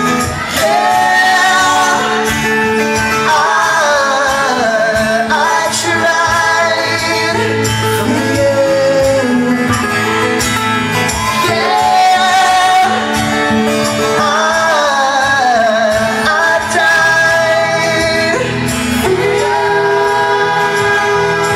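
Live band playing a song, with singing over guitar and band accompaniment.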